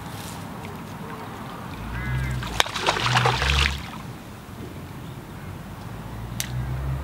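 Wind buffeting the microphone in gusts, with a short burst of sharp, rapid clicking and rasping sounds about halfway through.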